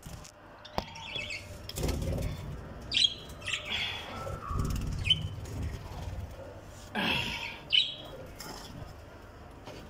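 Wings flapping among caged budgerigars and doves, with several short, high chirps.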